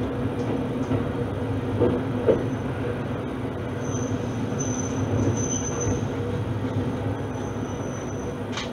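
Shimabara Railway diesel railcar heard from inside the cabin, running steadily as it slows for a station stop. A thin high brake squeal comes and goes from about four seconds in, and there is one sharp click near the end.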